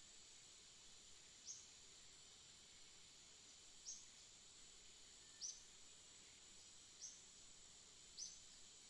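A bird chirping: five short, high chirps repeating about every one and a half seconds. They sit over a faint, steady high-pitched drone.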